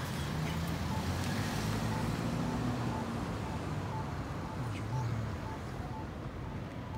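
Road traffic running through a signalled intersection, the low engine rumble loudest. Over it, a Campbell Advisor Guide accessible pedestrian push button sounds its short locator beep at an even pace, the tone that marks where the button is while the crossing shows don't walk.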